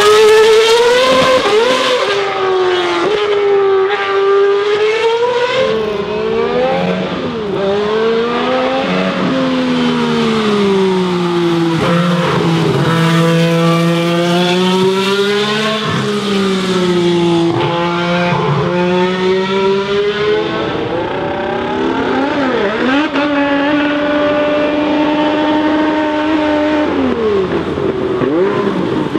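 Formula 1 race engines at speed: a modern Red Bull car and a 1980s Renault turbo car with its 1.5-litre turbocharged V6. The pitch climbs through each gear and drops at every shift or lift, and the engine note changes character twice as one car gives way to another.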